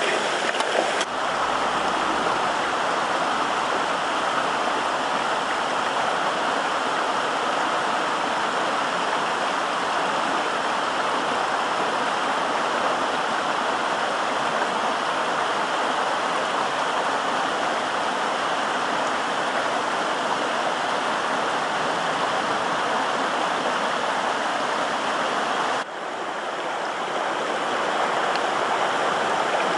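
Steady rush of running water, with no change in character except two abrupt cuts in the recording, one about a second in and one near the end.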